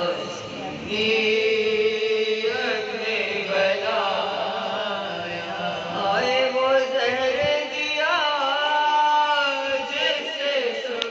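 Women chanting an Urdu marsiya, a mourning elegy, without instruments. A lead voice on the microphone is joined by others, singing long, wavering, bending notes.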